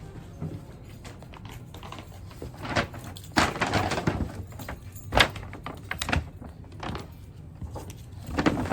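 Rustling and handling noises with several sharp clicks and knocks. The loudest rustle comes about three and a half seconds in, and a hard knock about five seconds in.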